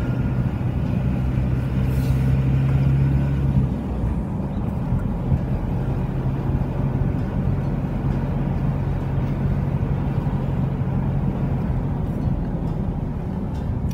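Car engine and tyre noise heard from inside the cabin while driving slowly: a steady low hum that eases a little about four seconds in.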